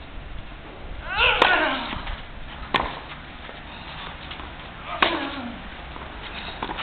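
Tennis ball struck hard by rackets in a rally off a second serve: three sharp hits about a second in, near three seconds and near five seconds, and the first and third come with a loud grunt that falls in pitch.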